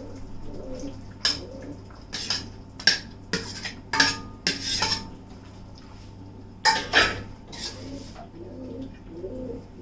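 A metal spoon clinking, knocking and scraping against a cooking pan as boiled raw banana pieces are tipped into the masala gravy and stirred in. The clinks come irregularly, about a dozen in all, a few with a brief metallic ring.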